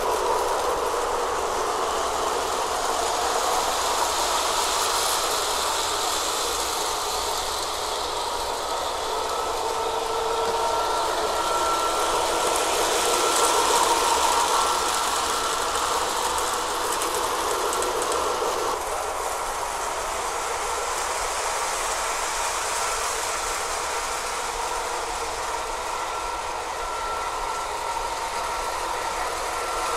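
O scale model diesel locomotive running on its track pulling a string of freight cars: steady rolling rumble and clatter of wheels on rail, with a steady high tone over it and the locomotive's onboard diesel engine sound. It grows louder as the train passes close, about halfway through.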